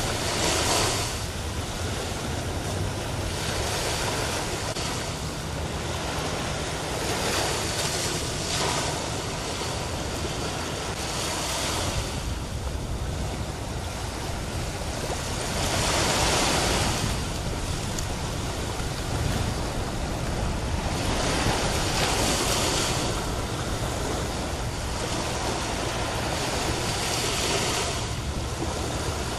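Sea surf washing against the shore and rocks, a steady rush that swells and eases every few seconds.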